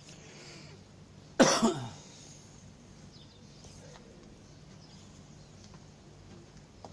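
A person coughing once near the microphone, about a second and a half in: a sudden loud burst with a quick second push just after it.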